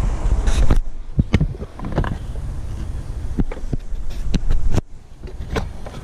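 Plastic air filter frame and airbox housing knocking, clicking and scraping in a quick irregular run as they are pushed and worked into alignment by hand, over a low rumble.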